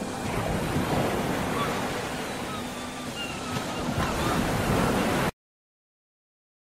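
Sea water rushing and splashing along a ship's hull, with wind on the microphone. The sound cuts off suddenly about five seconds in.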